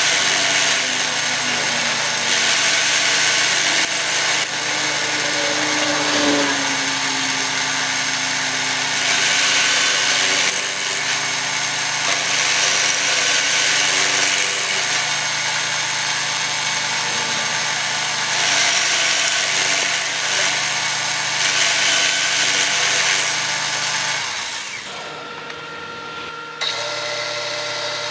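Excello milling machine running, its end mill cutting into a steel rectangular tube, the cutting noise swelling and easing every few seconds. It drops quieter for a couple of seconds near the end, then a steadier machine sound returns.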